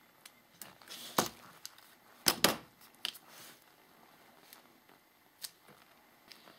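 Handling noise from gloved hands working epoxy putty around a small metal figurine: a few sharp clicks and knocks, the loudest a quick pair near the middle, with faint rustling between.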